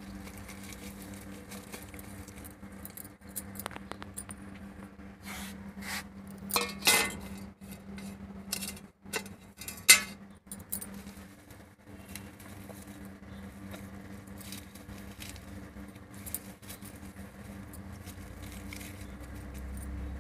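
Steel plate clattering and scraping as it is handled, with a sharp metallic clank about halfway through as it is knocked against the stone floor. A steady low hum runs underneath.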